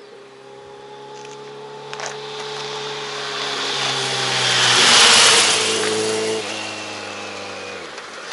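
Kawasaki Z900RS inline-four with an aftermarket K-FACTORY silencer riding past: the exhaust grows louder to a peak about five seconds in, then fades as the bike moves away.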